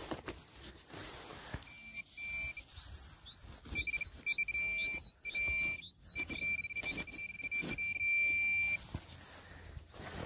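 Metal detecting pinpointer probed in a freshly dug hole, sounding a steady high-pitched tone that breaks off and resumes a few times before stopping near the end: it has found a metal target in the soil. Soft knocks and scrapes of hands and tool in the loose earth run underneath.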